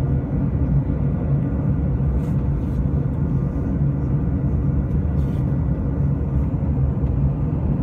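Airliner cabin noise in flight: a steady low rumble of engines and rushing air, with a faint steady hum above it and a couple of faint clicks.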